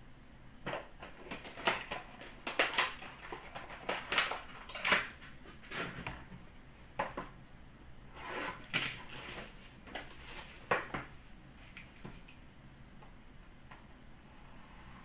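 Trading cards, paper wrappers and a cardboard box being handled on a glass counter: irregular clicks, taps and rustles, busiest in two spells of a few seconds each and quieter near the end.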